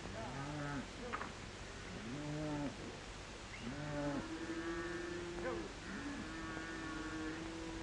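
A herd of cattle mooing: many overlapping calls that rise and fall in pitch, some short and some long and drawn out, as the herd is driven off.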